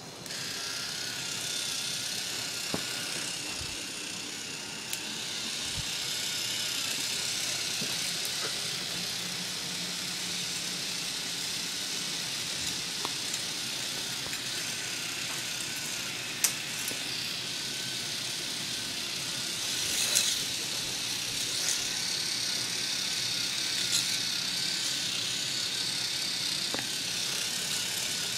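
K'nex roller coaster cars rolling along the plastic track: a steady rattling hiss that starts suddenly, with a few sharp clicks along the way.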